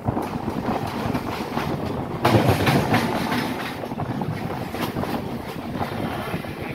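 Mumbai suburban local train running along the track, heard from its open doorway: wheels clicking over the rails under a steady rush of wind on the microphone. The noise jumps louder a little over two seconds in.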